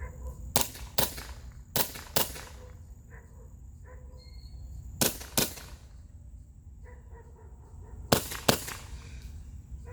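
Novritsch SSP-1 CO2 airsoft pistol firing .46 g BBs: eight sharp cracks in four close pairs, the two in each pair under half a second apart.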